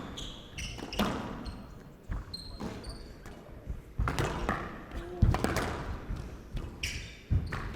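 Squash rally: the ball sharply struck by rackets and smacking off the court walls roughly once a second, with short high squeaks between the hits.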